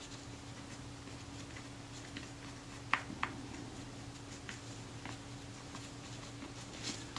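A cotton swab rubbing around a small metal shutter blade actuating ring as it is cleaned: faint scratching and small ticks, with two sharper clicks about three seconds in, over a low steady hum.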